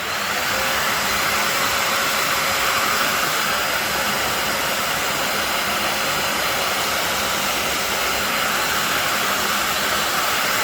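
Vacuum cleaner running steadily for dust extraction, a loud even rush of air with a faint motor whine, having just spun up to speed.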